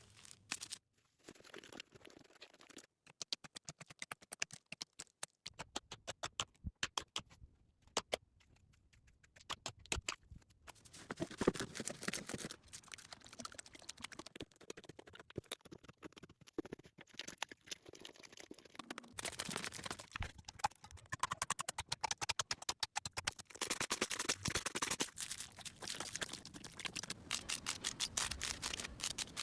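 Slime being squeezed and stretched by hand, giving dense sticky clicks and crackles that come in uneven flurries, thinner about a third of the way in and busier toward the end.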